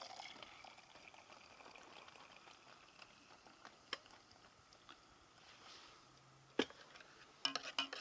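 Faint sounds of coffee being made: hot water poured and a spoon stirring and clinking in a mug, with a few small clinks and one sharp knock about six and a half seconds in.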